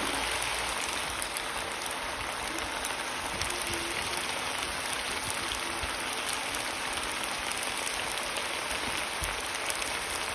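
Chicken cooking in a pot on the stove, a steady sizzling crackle of hot fat and juices.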